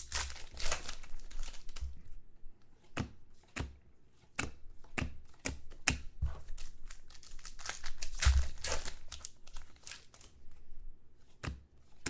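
Trading-card pack wrapper being torn open and crinkled, with sharp clicks and taps of cards being handled in between; the longest crinkling comes at the start and again about eight seconds in.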